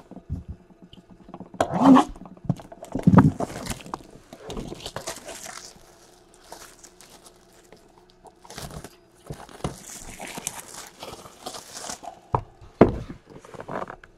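Clear plastic wrapping crinkling and rustling as a card box is handled on a table, with scattered knocks and scrapes of the box.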